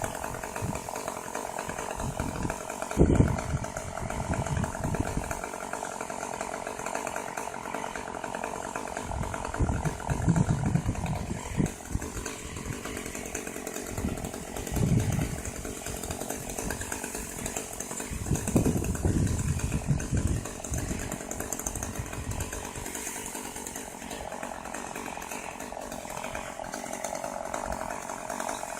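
Chainsaw running steadily while cutting eucalyptus, with several low thumps about 3, 10, 15 and 19 seconds in.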